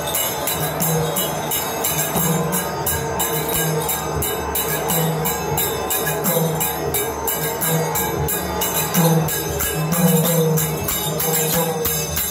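Live folk music played for a masked dance: fast, steady jingling percussion over drums, with a low melody of repeated held notes.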